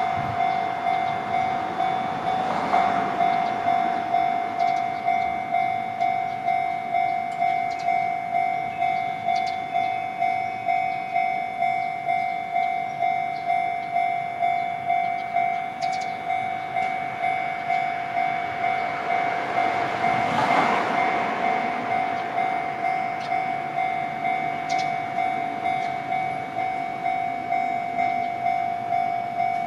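Japanese railway level-crossing warning alarm ringing, an even electronic clang repeating about one and a half times a second. A short rush of passing noise swells about twenty seconds in.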